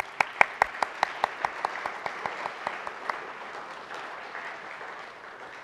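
Audience applauding. A run of sharp individual claps, about five a second, stands out at first over the wash of many hands clapping, and the applause dies down near the end.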